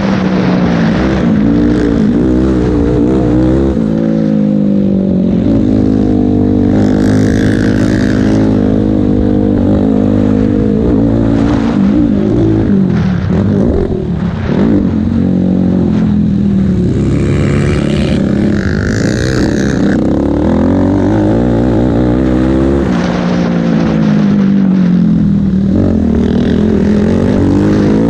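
Race ATV quad's engine heard on board while racing, revving hard with its pitch climbing and dropping again and again as the rider works the throttle and gears. It eases off briefly about halfway through, then pulls hard again.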